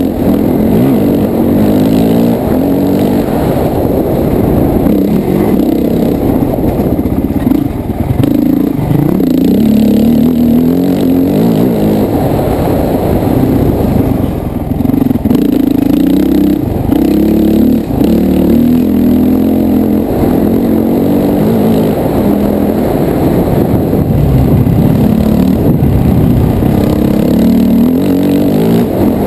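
Honda CRF450X dirt bike's single-cylinder four-stroke engine under way, heard from the rider's helmet, its pitch rising and falling over and over as the throttle is opened and closed.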